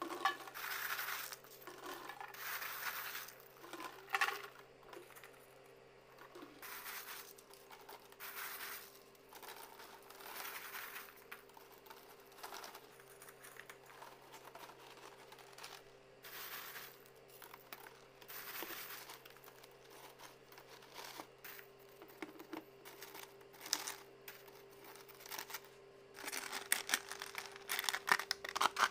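Dry meringue cookies being dropped and packed into a clear plastic cylinder container: irregular light rattling and plastic crinkling as it is handled. Near the end comes a quick run of sharp clicks as the lid is fitted on. A faint steady hum lies under it all.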